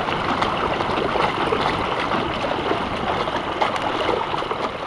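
Steady rushing noise of water and wind from a small sailboat out on a lake, starting suddenly.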